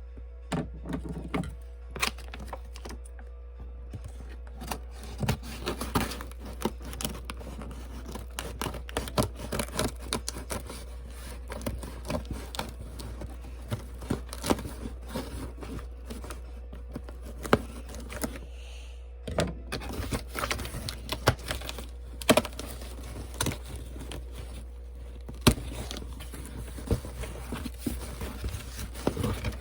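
Packaging being opened and handled by hand: irregular crinkling, tearing and sharp clicks, over a steady low hum.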